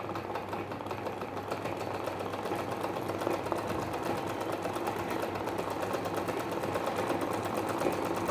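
Pico (picot-edging) sewing machine running steadily, its needle stitching in a fast, even rhythm that grows a little louder over the first few seconds.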